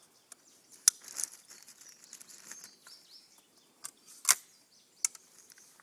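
20-gauge single-shot break-action shotgun being reloaded between shots: a few scattered metallic clicks and light rustles as the action is opened, a shell handled and the action closed, the loudest a sharp click about four seconds in.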